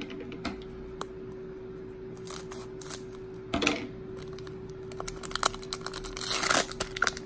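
Foil wrapper of a Pokémon booster pack crinkling in the hands, with scattered crackles. The pack is then torn open in a dense burst of crackling about six seconds in, the sound of a fresh pack opening.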